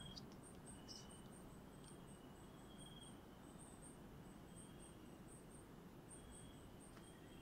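Faint night-forest ambience: an insect chirping in short, high-pitched pulses, about three a second, over a quiet background, with a few faint brief whistles now and then.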